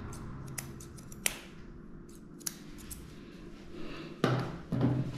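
Grooming scissors snipping matted hair around a small dog's face: scattered sharp snips, a few at a time, then two louder short knocks near the end.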